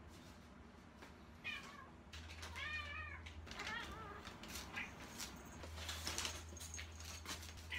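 Munchkin cat meowing several times up at its owner, calling for attention; the calls are short and rising-then-falling, the longest about three seconds in.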